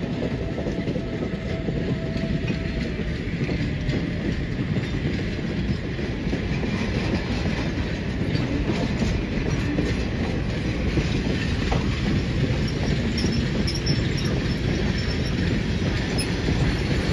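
Freight cars and a caboose of a steam-hauled freight train rolling past slowly, with a steady rumble of steel wheels on the rails.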